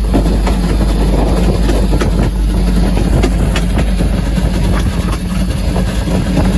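Wa-class steam tank locomotive running slowly, heard from on board at the front of the engine: a steady low rumble with knocks and clanks at irregular intervals.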